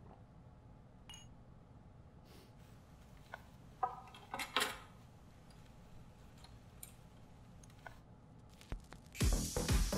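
Small clicks and clinks of a record turntable being handled as a vinyl record is put on, then music starts loudly from the record player about nine seconds in.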